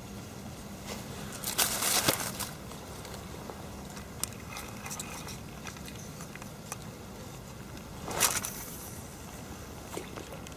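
Short bursts of rustling and crackling from fishing tackle being handled among dry reeds, twice, with a few sharp clicks between them, over a steady outdoor hiss.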